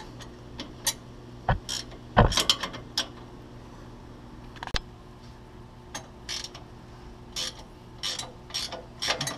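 Scattered metallic clicks and clinks of hand tools and fasteners while a nut is worked onto the steering stabilizer's mounting bolt, some in quick clusters like a ratchet wrench, over a faint steady hum.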